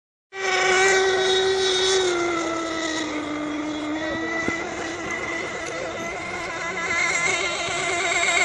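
Radio-controlled racing boat engine running flat out: a high, steady whine that drops a little in pitch over the first few seconds and begins to warble quickly near the end.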